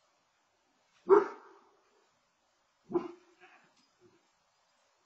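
Bernese Mountain Dog puppy barking: a loud bark about a second in, a second bark near three seconds in, then a couple of fainter ones.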